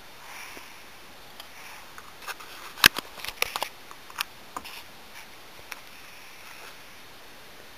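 A cluster of sharp clicks and light taps from small objects being handled, the loudest about three seconds in, over faint room hiss.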